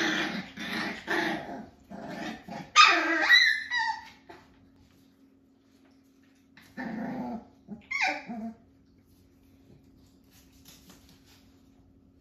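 Jack-A-Bee (beagle × Jack Russell terrier) puppies growling, barking and giving high yelps as they play-fight, in a run of bursts over the first four seconds and again about seven to eight seconds in.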